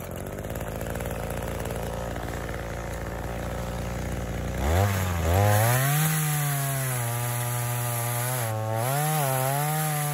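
Two-stroke gas chainsaw idling steadily, then revved up about halfway through and held at high speed. Its pitch sags and recovers several times, as it does when the chain is cutting wood.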